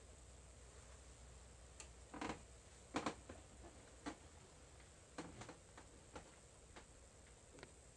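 Soft footsteps and light knocks, about a dozen irregular ones with the loudest about three seconds in, as someone steps down into a boat's cabin, over a faint low hum.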